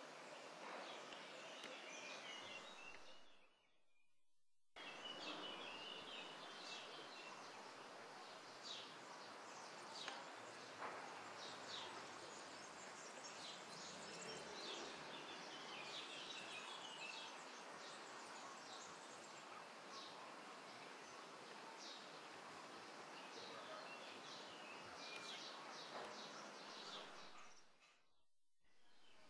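Faint outdoor ambience: small birds chirping over a steady hiss of background noise. The sound drops out briefly about four seconds in and again near the end.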